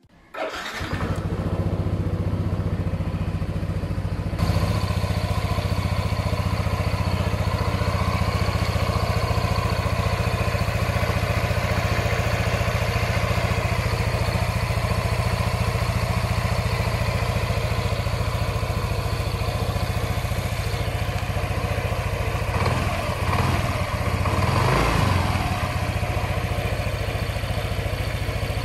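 Yamaha NMAX 155 scooter's single-cylinder four-stroke engine starting about half a second in and then idling steadily on a newly fitted spark plug. The sound swells briefly about 23 to 25 seconds in.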